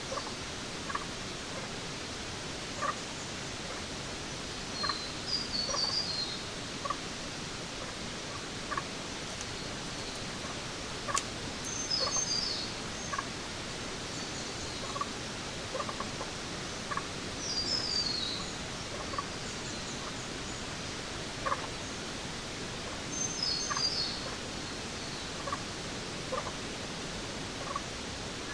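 Jungle ambience with birds calling over a steady hiss. One bird repeats a short, high phrase that steps downward about every six seconds, while lower single chirps come roughly once a second.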